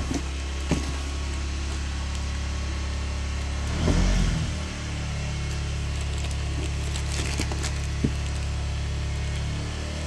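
A steady low engine-like hum, swelling briefly about four seconds in. Over it come a few sharp clicks and knocks as a room heater in plastic wrap is handled and lifted out of its cardboard box.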